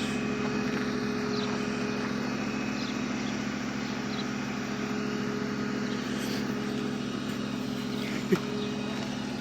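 A vehicle engine idling steadily with an even drone, and a single short click about eight seconds in.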